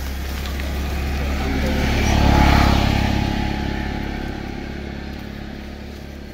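A motor vehicle passing by on the road: its engine grows louder to a peak about two and a half seconds in, then fades away.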